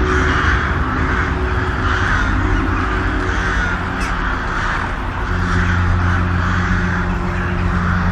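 Crows cawing over and over, about once a second, layered over a low, steady droning hum, as in a creepy horror sound effect.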